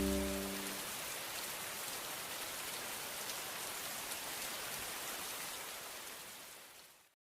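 Steady rain hiss that fades out and stops dead near the end. In the first second the last held low notes of soft ambient music die away under it.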